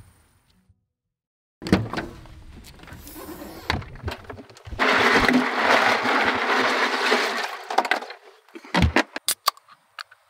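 A hand digging around inside a Yeti hard cooler, with a clatter of ice and cans lasting about three seconds after a few knocks as the cooler is opened. A few sharp clicks follow near the end as a drink can is handled.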